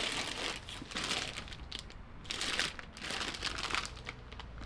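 Packaging crinkling and rustling in irregular bursts as the parts of an inflatable belly boat are unwrapped and handled.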